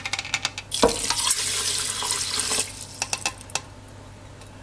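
About a cup of water poured from a measuring cup into a pressure cooker's inner pot over uncooked rice and chicken, splashing for about two seconds. There are a few light clicks of the cup against the pot before and after the pour.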